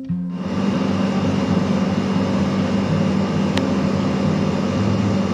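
Steady rushing hum of a room air conditioner running close by, with one faint click about three and a half seconds in.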